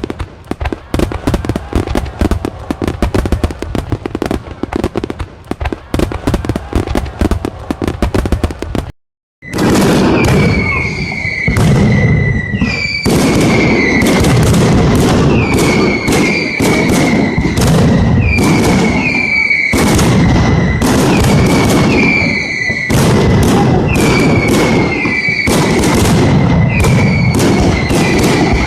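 Mascletà firecracker barrage: a dense, rapid crackle of bangs, then after a brief cut a run of loud bangs with short whistles falling slightly in pitch, about one every second or so.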